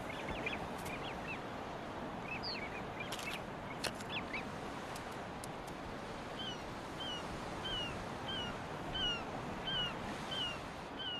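A bird calling over a steady rushing outdoor background: a few scattered chirps in the first seconds, then from about halfway a regular series of short, downward-slurred calls, about two a second.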